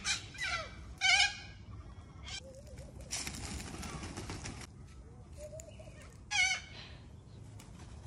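Parrots calling in short bursts: three calls in the first second and a half and another about six and a half seconds in, with a stretch of hissing noise in the middle.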